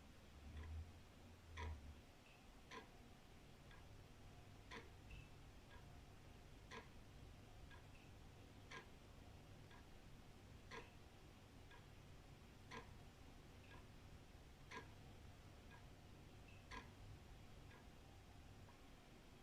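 Old wall clock ticking faintly, about one tick a second, with louder and softer ticks alternating in a tick-tock. A faint, steady low rumble sits underneath.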